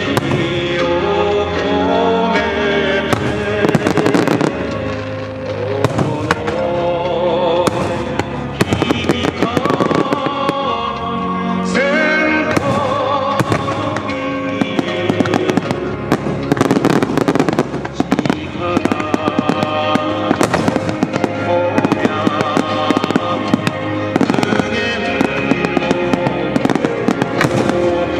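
Aerial firework shells bursting in rapid, overlapping cracks and booms throughout, over a song with a singing voice.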